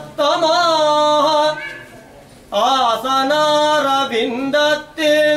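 A man's solo voice chanting a devotional hymn in praise of Ramanuja, in long held, wavering melodic notes, with a short breath pause about two seconds in.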